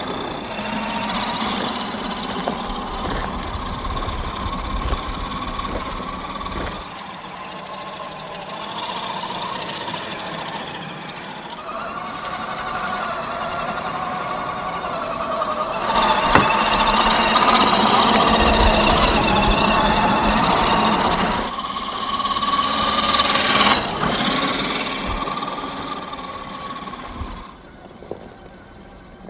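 A 1/10-scale RC crawler's 540-size 27-turn electric motor and gear drivetrain whine steadily as the truck drives over rough ground. The whine swells and eases with the throttle and is loudest in the middle. A sharp knock comes about 16 seconds in, and the whine drops away near the end.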